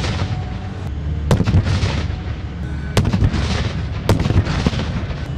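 Three sharp explosive blasts from pyrotechnic battlefield-simulation charges, roughly a second or two apart, each trailing off in a short rumble, over a steady low rumble.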